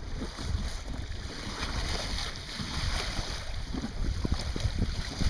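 Wind buffeting the microphone, a fluctuating low rumble over a hiss of wind and water on the water, with a few faint knocks.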